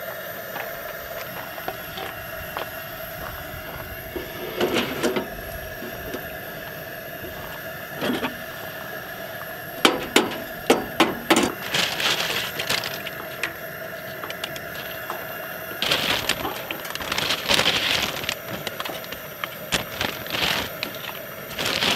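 Cooking at a two-burner camp stove: a spatula clicks and scrapes against a pan in a quick run of sharp clicks about ten seconds in, while eggs are scrambled. Crackling, crunching bursts come after, as tortilla chips are handled and laid into the sauce pan.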